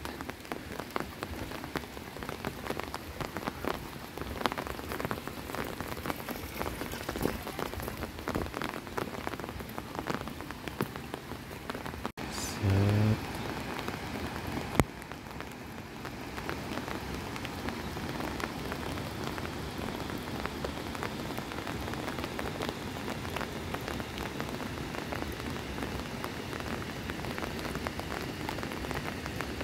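Light rain falling, a steady hiss with many individual drops ticking sharply close by. A short low pitched sound stands out about twelve seconds in, and a single sharp click follows a couple of seconds later.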